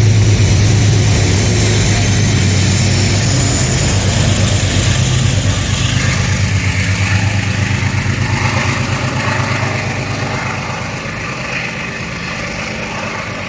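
Diesel-powered passenger train passing: a locomotive engine's steady low drone with the rumble of the wheels on the rails, slowly fading in the second half as the train moves away.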